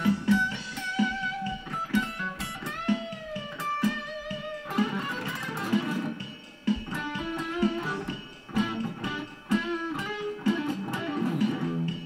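Music: a song led by plucked electric guitar, with notes that bend in pitch.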